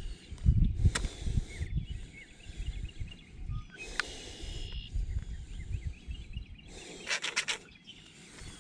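Low, uneven rumbling on the microphone, with small birds chirping in the background. There is a short rustle about four seconds in and a brief rattle around seven seconds.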